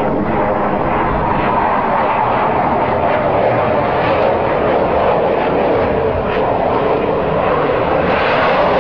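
Fighter jet flying past, its jet engine making a steady, loud rushing noise that grows a little louder near the end.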